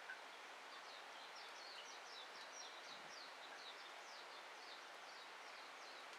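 Faint bird calls: a run of short, high, downward-sliding chirps at about four a second, over a steady background hiss.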